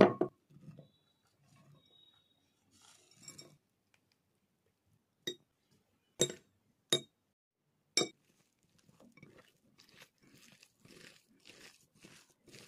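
Ingredients going into a glass bowl with a few sharp knocks and clinks against the glass. Then, from about nine seconds in, fingers squish and mash boiled potatoes in the bowl, roughly two soft squelches a second.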